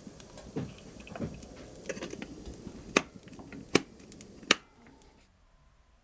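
A few sharp knocks, the last three loud and about three-quarters of a second apart, over a faint steady background that drops away near the end.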